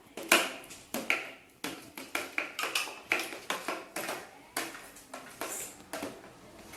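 A spoon knocking and clicking against a bowl, irregular sharp taps about two or three a second, as slime ingredients are stirred.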